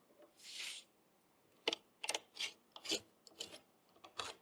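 A hand tool scraping and prying at an old wooden sash window stuck in its frame: one longer hissing scrape about half a second in, then a string of short, irregular scrapes.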